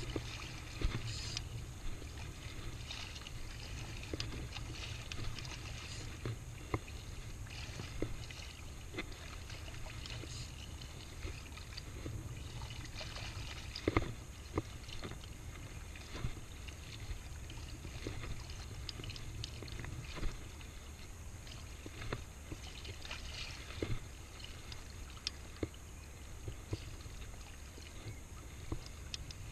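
Shallow seawater sloshing and lapping while wading, over a steady low rumble, with irregular small clicks and knocks.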